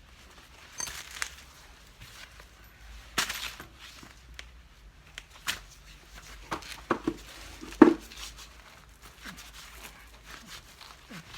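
Scattered clicks, knocks and rustling of hands handling tools and parts during a cart tyre change. The sharpest knock comes about two-thirds of the way through.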